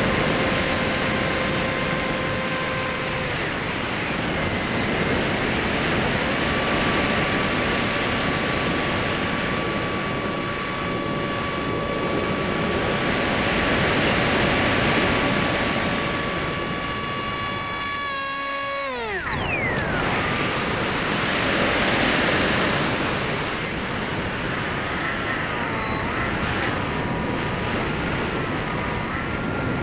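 Electric motor and pusher propeller of a Skysurfer (Bixler) foam RC plane whining steadily over a loud rushing noise. About two-thirds of the way through, the whine falls away sharply as the throttle is cut. It then comes back, its pitch wavering with the throttle.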